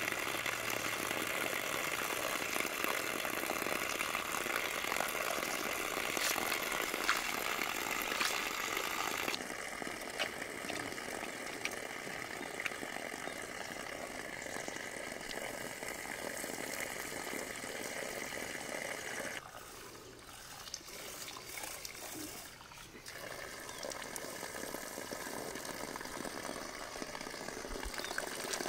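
Steady rush and splash of running water, which changes character abruptly a few times.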